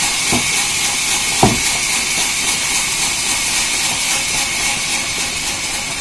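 Sawmill band saw running steadily through a neem log, a continuous high hiss of blade cutting wood. A single sharp knock comes about one and a half seconds in.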